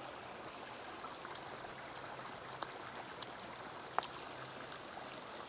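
A small stone striking a crawfish against a rock, five short sharp knocks about every half second, the last one the loudest, over the steady rush of a stream.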